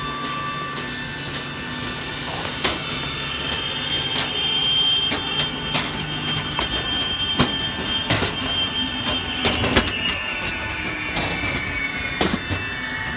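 Jet aircraft on an airport apron giving off a steady, high-pitched whine. One tone slides slowly down in pitch over the last few seconds. Irregular sharp knocks from footsteps on metal boarding stairs run through it.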